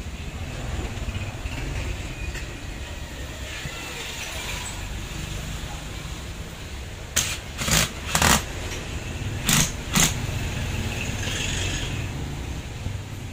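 Sharp clacks of a rotary hammer's hard plastic motor housing and small parts knocking as they are handled on a workbench, about six in a quick run a little past the middle, over a steady low rumble.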